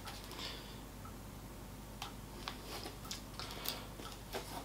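Faint clicks and light handling noises as a compact camera is fitted onto a Joby GorillaPod 3K flexible tripod, with several short ticks in the second half.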